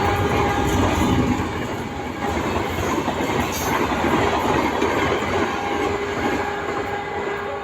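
A train running past at speed, its wheels clattering over the rail joints in a dense steady rumble that eases slightly near the end. A faint steady tone comes back through the noise about two-thirds of the way in.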